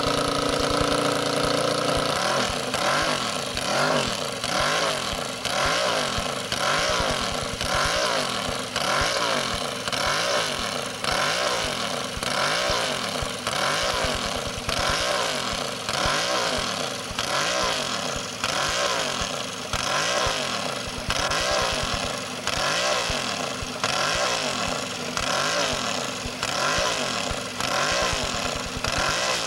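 Ducati TT2 racing motorcycle's V-twin engine idling steadily, then revved up and down by the throttle about once a second from about two seconds in, warming up.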